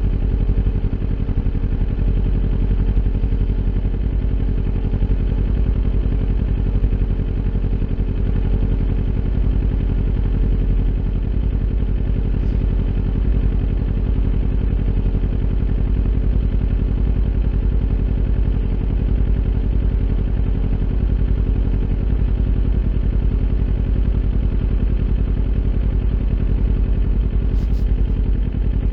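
Kawasaki Ninja 400's parallel-twin engine running through an Akrapovic aftermarket exhaust, holding a steady engine speed with no revving.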